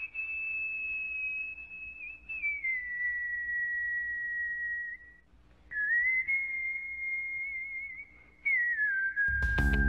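A person whistling a slow tune of long held notes, sliding down from one note to the next, with two short breaks. Music with guitar comes in near the end.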